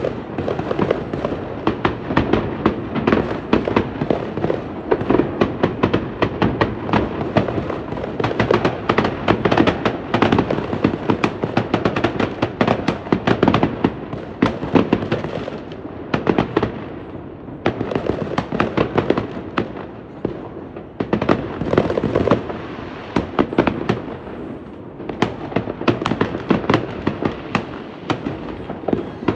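Fireworks display going off in a dense, continuous barrage of sharp cracks and bangs, easing briefly a couple of times a little past halfway before building again.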